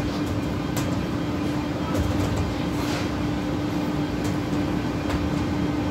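Steady hum of commercial kitchen ventilation and equipment: a constant drone over a low rumble, with a few faint clicks and clatters.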